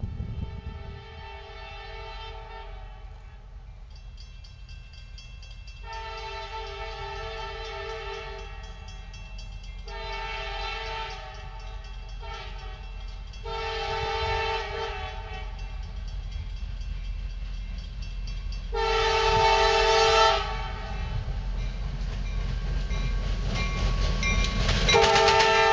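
CSX diesel freight locomotive's multi-tone air horn sounding a string of blasts, mostly long with one short, the pattern used as a grade-crossing warning. It grows louder as the train approaches, with a low engine rumble rising underneath and the loudest blasts near the end.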